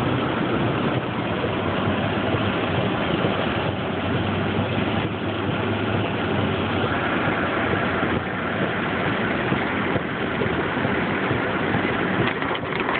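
Steady noise of a car driving on a rain-soaked road, heard from inside the cabin: tyres hissing on wet pavement over a low engine hum.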